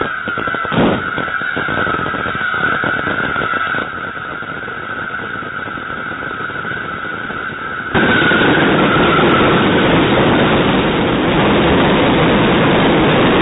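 Fireworks crackling densely in rapid overlapping pops, with a heavy bang about a second in and a steady high tone running under them until about ten seconds in. About eight seconds in the crackle suddenly becomes much louder and denser, a continuous wall of bangs.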